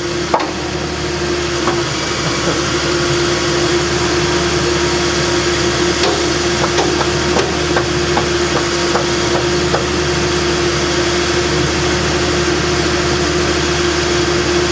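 Caterpillar 322B excavator's diesel engine running steadily, with a steady whine over it. A couple of sharp knocks at the very start.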